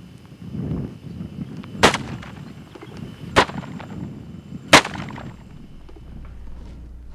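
Three revolver shots about a second and a half apart, each a sharp crack, the last one the loudest.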